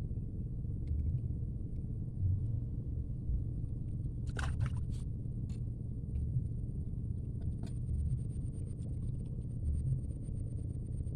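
Wind buffeting the microphone as a continuous low, uneven rumble, with a few sharp clicks or knocks about four and a half seconds in and again near eight seconds.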